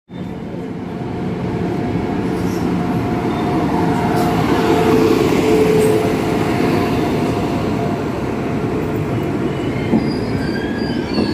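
Indian Railways WAP-7 electric locomotive and its passenger coaches rolling slowly in along a platform: wheels rumbling on the rails under a steady hum, loudest as the locomotive passes about halfway through, with a single knock near the end.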